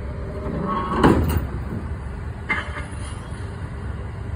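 A road vehicle passes close by about a second in, rising and then falling away, over a steady low rumble. A short knock follows about two and a half seconds in.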